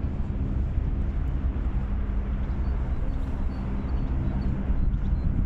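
Steady low rumble with a constant hum, like a running motor, with faint short high chirps repeating over it.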